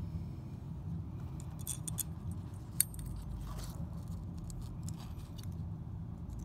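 Small metal clicks and clinks from handling a screw and the sheet-metal bracket of a furnace hot-surface igniter, with one sharp click about three seconds in. A steady low hum runs underneath.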